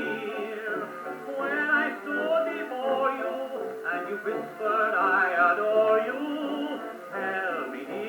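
Columbia 800 acoustic phonograph playing a 78 rpm Victor dance-band record from the 1920s, with a wavering, voice-like melody over the band. The sound is narrow and boxy, with no deep bass and no high treble, typical of acoustic horn playback.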